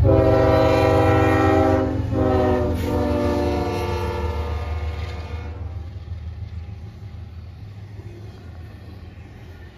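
Norfolk Southern diesel locomotive's multi-chime air horn sounding two long blasts for the grade crossing, over the heavy rumble of the diesel engines as the locomotives pass. The horn stops about five seconds in, leaving the quieter rolling rumble of double-stack container cars, which fades away.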